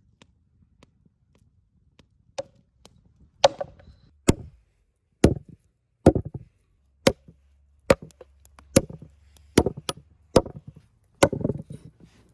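A knife chopping raw lamb ribs apart on a wooden log-slice cutting board, its blade striking the wood through the meat: a few light taps, then about ten sharp chops, roughly one a second.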